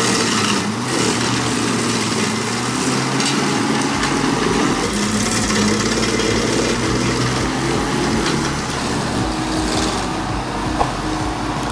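Engine of a remote-controlled wood-chewing machine running steadily under power, with a deeper rumble joining about four seconds in.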